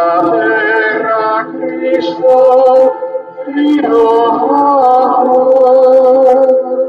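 Voices singing a hymn in two long phrases of held notes, with a short break about three seconds in.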